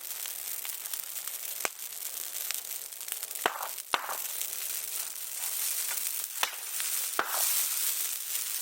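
Bonfire burning, with a steady hiss and crackle and several sharp pops.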